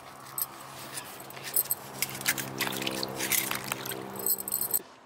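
Water sloshing and splashing in a steel bowl as peeled green bananas are stirred by hand in salted water. A steady low musical tone sounds under it from about two seconds in and cuts off abruptly near the end.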